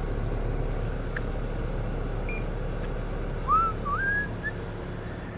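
Steady hum of a running air-conditioning system while refrigerant is slowly charged into it. About three and a half seconds in comes a short whistle of a few gliding, rising notes.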